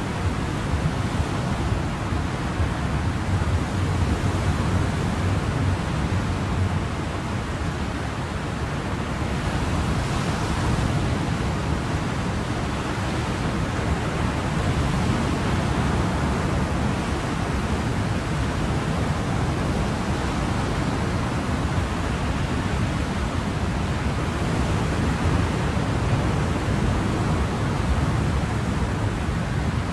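Ocean waves washing in as a steady, continuous rush of surf, easing slightly about eight seconds in.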